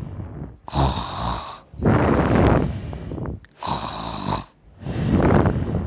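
A person snoring loudly: two cycles of a hissing breath followed by a rough, rattling snore. It starts and stops abruptly.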